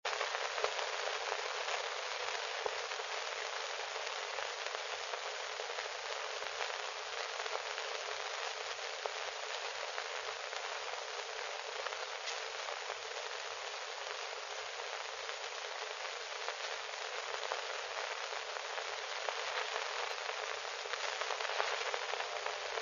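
Steady hiss with scattered faint clicks and crackles.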